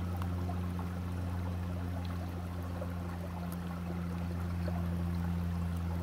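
Running creek water under a steady low hum that does not change.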